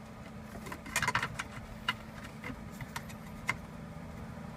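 Plastic centre-console parts of a BMW X5 clicking as they are pressed and snapped into place: a quick cluster of clicks about a second in, then single clicks every half second or so, over a faint steady hum.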